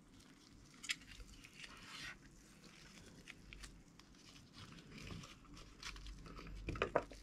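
Faint rustling and a few soft clicks of hands working a raw whole duck and its stuffing, with one sharper click about a second in and a small cluster near the end.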